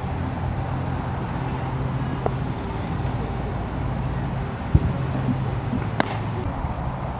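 A steady low mechanical hum of outdoor background noise, with a few short knocks; the sharpest comes about six seconds in.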